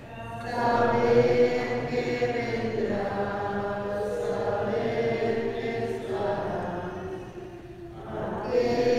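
Singing of an offertory hymn at Mass, in long held phrases that break off briefly about three, six and eight seconds in.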